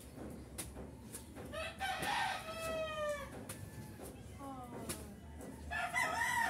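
A rooster crowing twice: one crow starting about one and a half seconds in and ending with a falling tail, and a second crow starting near the end.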